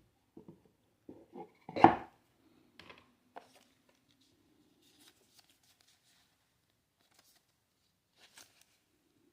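Handling noises from unboxing a wristwatch: scattered light clicks and taps of the box and packaging, with one sharp knock about two seconds in.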